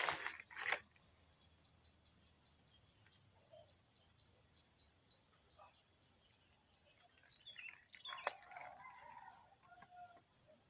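A rooster's crow trails off in the first second, then small birds chirp faintly in quick runs of short high notes, with a louder call about eight seconds in.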